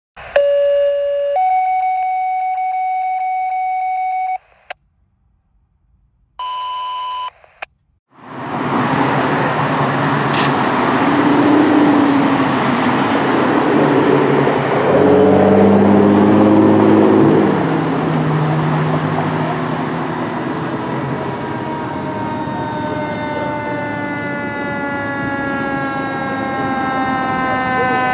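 Two short steady electronic tones, then road traffic and a fire engine's engine running as it moves off. About two-thirds of the way in, the fire engine's siren starts winding up, rising slowly in pitch and growing louder.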